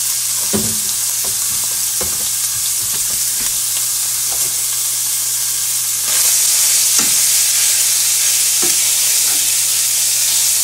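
Chopped pork sizzling as it reheats in a dry non-stick skillet, with occasional knocks and scrapes in the pan. The sizzle gets louder about six seconds in.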